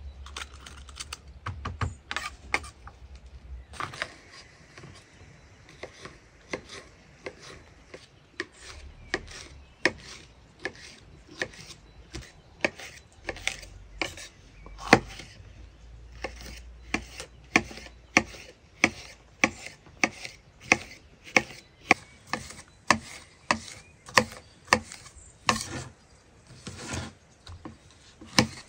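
Knife chopping on a wooden cutting board: sharp knocks, irregular at first, then settling about halfway through into a steady rhythm of about two strokes a second.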